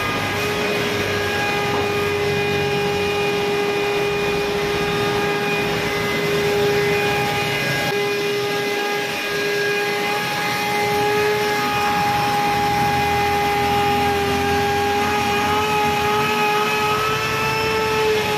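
Car-wash machine's electric motor running steadily, a held whine over a rushing noise, its pitch edging up slightly near the end.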